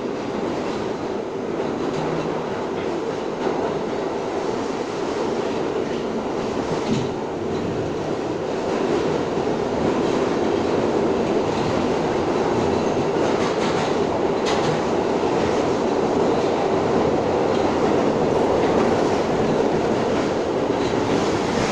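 R62 subway car running at speed through a tunnel, heard from inside the car: a steady rumble of wheels on rail that grows louder about ten seconds in, with an occasional sharp click from the wheels over the track.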